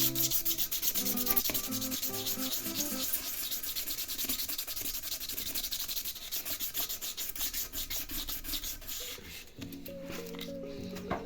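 A car wheel rim being sanded by hand: quick, scratchy back-and-forth rubbing strokes.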